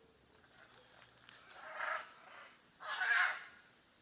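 Macaws squawking: several harsh, raspy calls, the loudest about three seconds in.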